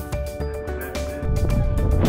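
Background music with a steady beat; about a second in, wind buffeting the microphone adds a low rumble beneath it.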